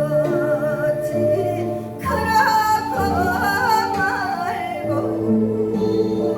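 A woman singing a Korean folk song (minyo) with a wide, wavering vibrato over steady instrumental accompaniment. The voice comes in strongest about two seconds in and holds for a few seconds before dropping back.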